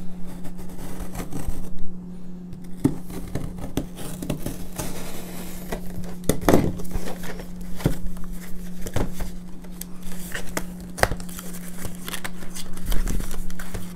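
Cardboard display box being cut and torn open along a dotted line: irregular scraping, tearing and crinkling, with sharp clicks now and then, over a low steady hum.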